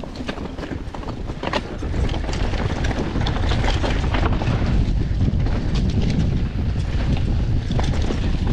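Enduro mountain bike riding down a rough trail: wind buffeting the microphone over a steady rumble of tyres on the ground, with many short knocks and clicks from the bike jolting over the terrain. The rumble grows louder about two seconds in and stays up.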